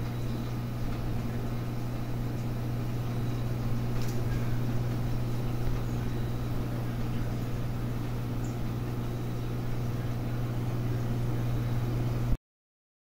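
Aquarium pump equipment humming steadily: a low electric hum over a soft hiss. It cuts off suddenly near the end.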